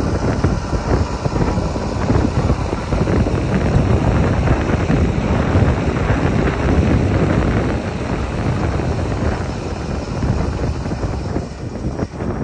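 Tractor diesel engine running steadily under load as it drags a tiller through a flooded rice paddy, with wind buffeting the microphone.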